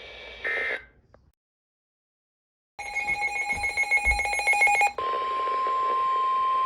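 NOAA Weather Radio alert signalling: about two seconds of buzzy, warbling SAME digital header data, then from about five seconds in the steady single 1050 Hz warning alarm tone that precedes a tornado warning. Before the data, a moment of radio hiss is followed by a second and a half of dead silence.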